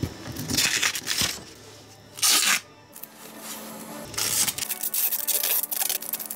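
Blue adhesive tape being pulled off its roll and wound around a yanagiba knife blade. It comes as a few short ripping pulls, then a longer stretch of tearing in the second half.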